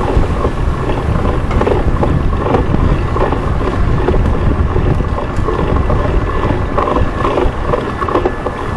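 Wind buffeting the microphone of a body-worn camera on a moving bicycle: a steady low rumble with street noise mixed in.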